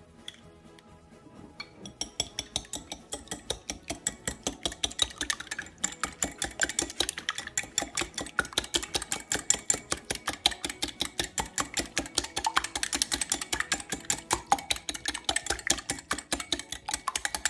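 Eggs being beaten in a bowl, the utensil clicking against the bowl several times a second in a fast, steady rhythm that starts about two seconds in.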